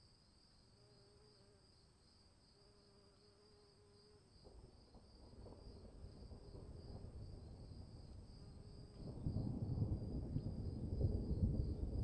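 Insects chirring steadily in a high, pulsing band, while a low rumble of thunder builds from about four seconds in and turns loud near the end.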